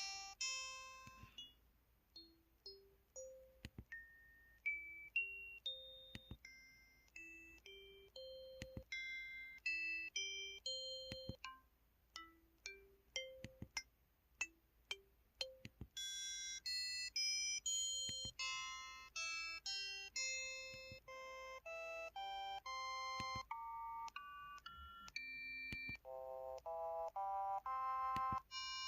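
Keypad button tones of a KTF X3500 mobile phone: short electronic notes at changing pitches, one per key press, each dying away quickly. About halfway through they come faster, as a quick melodic run.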